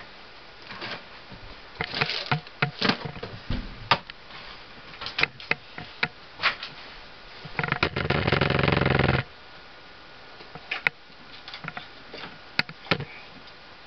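Handcuffs and chain clinking and knocking in scattered sharp clicks while being moved about, with one loud rasping buzz lasting about a second and a half near the middle.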